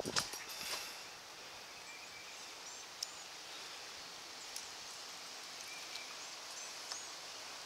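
Quiet outdoor ambience: a steady faint hiss with a few soft rustles and clicks in the first second, and scattered faint high chirps from small birds.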